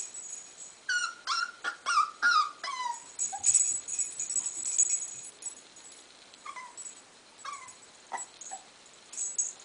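Young puppy whining as it balks at stepping down a stair: a quick run of short, high whines, each falling in pitch, in the first few seconds, then a few fainter whines near the end.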